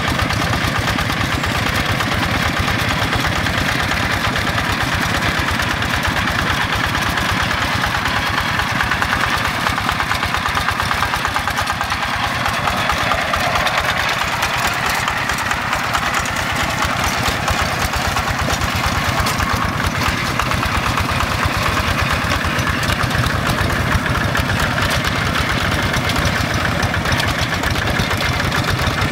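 Quick G1000 two-wheel hand tractor's single-cylinder Yanmar diesel engine running steadily with a fast, even chugging beat as it tills a flooded rice paddy.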